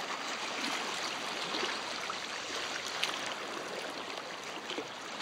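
Shallow lake water lapping and rippling at the shore: a steady wash with small splashes and trickles.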